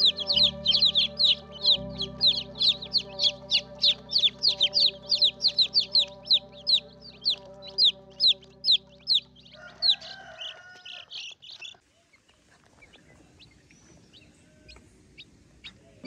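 A brood of young chicks peeping: a rapid run of high, falling peeps, several a second. It breaks off about ten seconds in, leaving only a few faint peeps.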